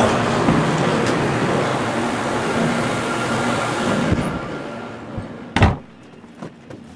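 A steady, loud rushing rumble of shop background noise, with a faint hum in it, dies away over a couple of seconds. Then a single sharp thump about five and a half seconds in.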